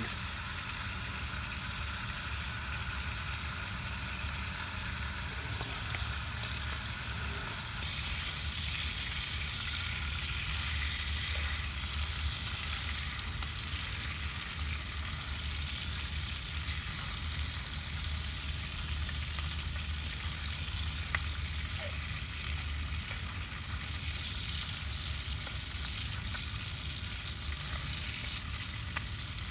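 Bacon and eggs frying in a pan with a steady sizzle that grows a little stronger about eight seconds in, with a few faint ticks and pops.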